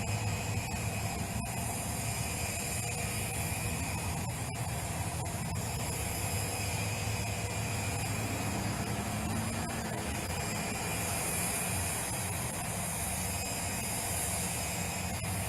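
Steady engine noise: a low hum under a high hiss, with faint steady whining tones, running without change.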